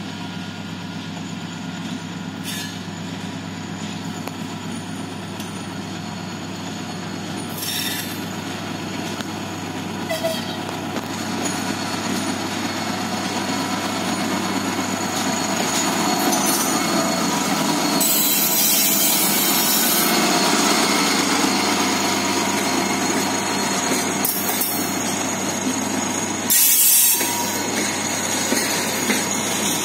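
TGM4A diesel-hydraulic shunting locomotive hauling a loaded train, its diesel engine working hard and growing steadily louder as it approaches and passes, then the loaded grain hopper wagons rolling by. Short sharp high-pitched bursts break in a few times, the loudest near the end.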